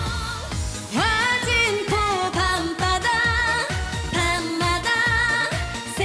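A woman singing a Korean trot song over an upbeat dance-pop backing with a steady beat. Her voice comes in with an upward slide about a second in, then holds notes with vibrato.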